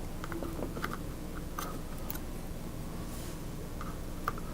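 Hands handling a laptop DDR4 SO-DIMM memory stick: scattered small clicks and light taps over a faint steady background.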